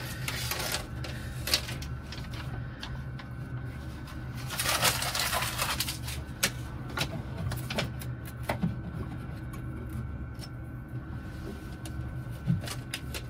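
Frosted window cling film being handled and pressed onto a small sliding window: scattered clicks and taps, with a crinkling rustle about five seconds in. A steady low hum runs underneath.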